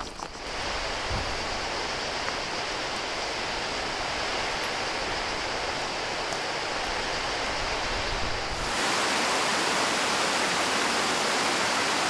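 Steady rush of cascading river water. About two-thirds of the way through it jumps louder and brighter, and the low rumble under it drops away.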